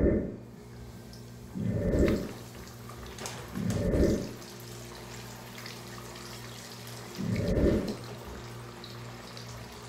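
Breaded tilapia pieces laid one at a time into hot frying oil in a skillet, each met by a loud burst of sizzling. There are four bursts, about two seconds apart with a longer gap before the last, and a steady frying hiss between them.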